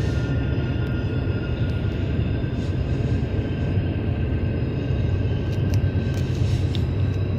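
Train rolling past, a steady heavy low rumble.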